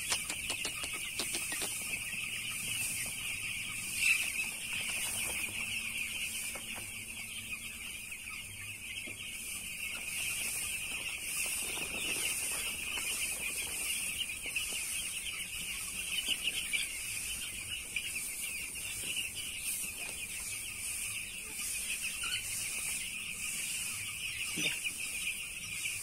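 A large flock of eight-day-old broiler chicks peeping together: a steady, dense chatter of high-pitched peeps with one louder peep about four seconds in.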